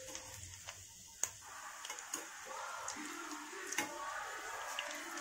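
Oil sizzling as crumb-coated egg-and-bread balls deep-fry in a small pan, with a few sharp clicks of the spatula against the pan as the balls are turned.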